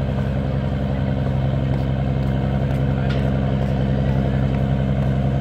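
An engine running at a steady speed: a constant low drone that does not change.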